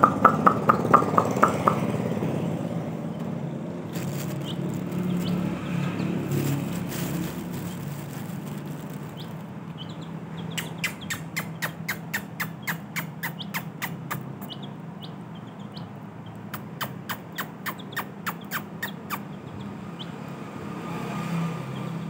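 Baby chicks peeping: a quick run of loud, rapid peeps in the first two seconds, then quieter scattered peeps and, later, two long runs of fast, sharp clicks, over a steady low hum.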